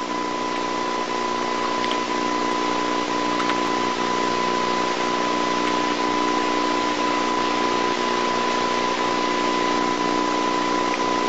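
Steady hiss with a constant high whine and a low hum, unchanging throughout: the background noise of an old videotape recording, with no other sound on top.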